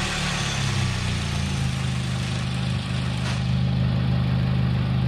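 A Korean sedan's 2.0-litre DOHC 16-valve four-cylinder engine idling steadily and smoothly on ordinary motor oil. A higher hiss over the engine fades away a little after halfway.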